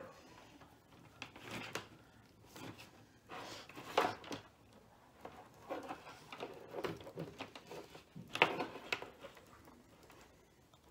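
Rustling and scraping of insulated wires being handled and pulled out of a bundled automotive wiring harness, in irregular short bursts with a sharper click about four seconds in and again past eight seconds.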